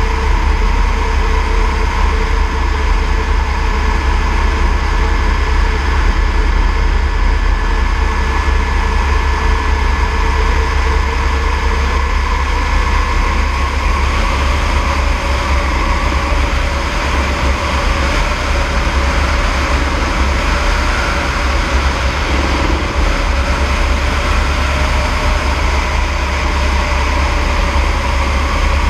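Eurocopter AS350 B3e helicopter in flight, its rotor and turbine giving a steady, loud drone. A faint thin whine in it fades out about halfway through.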